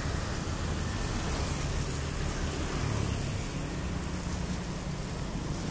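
Steady road traffic noise from motorbikes and cars on a wet road: a low rumble under an even hiss, with no separate pass-bys standing out.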